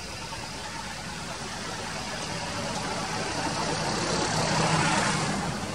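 A motor vehicle engine running with a steady low hum, its noise building to a peak near the end and then falling away, as a vehicle passing close would.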